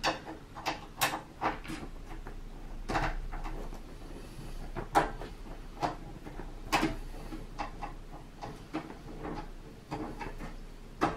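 A Phillips screwdriver backing a case screw out of the side of a hi-fi unit, with irregular small clicks and knocks as the tool and the loose screw are handled on the bench.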